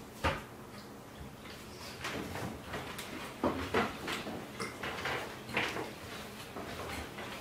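Forks and knives clinking and scraping on plates as several people eat, in short irregular knocks and scrapes.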